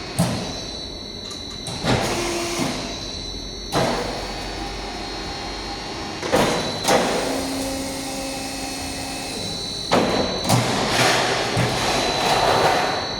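CNC sheet-metal folding and slitting machine running: a steady high whine under repeated sudden clunks, with stretches of louder mechanical noise as it works, the loudest near the end.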